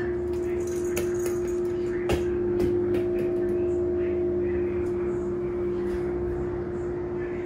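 A steady hum, one low tone held throughout, with a few light clicks and knocks about one and two seconds in.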